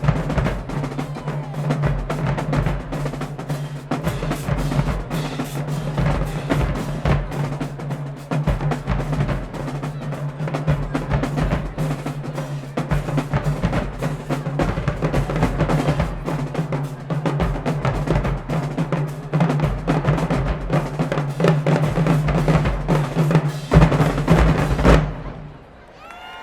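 High school marching band drumline playing a fast, dense drum cadence of snare rolls and bass drum strokes, cutting off abruptly near the end.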